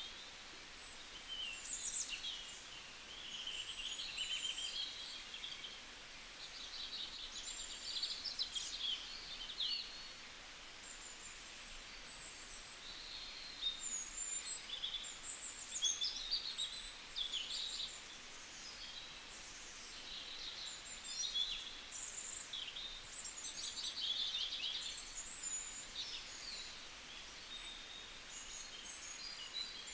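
Small birds chirping and singing together in a busy chorus of high, quick notes and short trills that overlap and keep coming, over a faint steady hiss.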